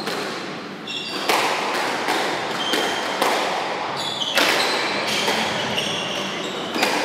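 Squash rally: the ball cracking off rackets and the court walls about once a second, echoing in the enclosed court, with a few short squeaks of shoes on the wooden floor.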